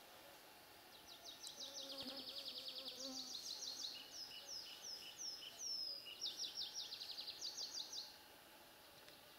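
A songbird singing one long, varied song of rapid high trills and downward-slurred whistled notes, starting about a second in and stopping near the end.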